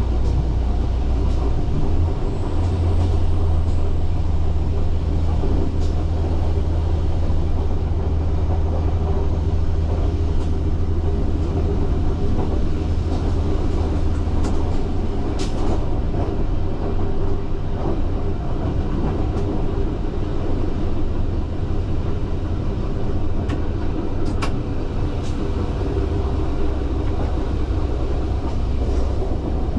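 Alstom Coradia LINT 54 diesel railcar running, heard from the driver's cab: a steady engine drone and rolling noise. The engine's deep hum eases about halfway through, and there are a few sharp clicks.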